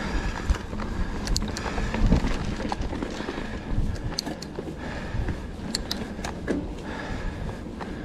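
2023 Trek Roscoe 9 hardtail mountain bike rolling down a dirt trail: tyres rumbling over the ground, with bumps and scattered sharp clicks and rattles from the bike.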